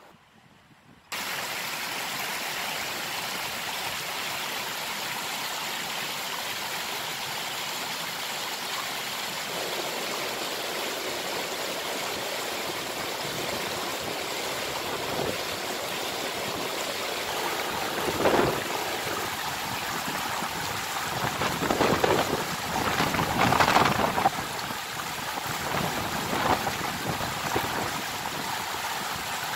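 Water rushing and splashing over rocks at the edge of a lake, a steady rush that cuts in suddenly about a second in, with a few louder surges in the second half.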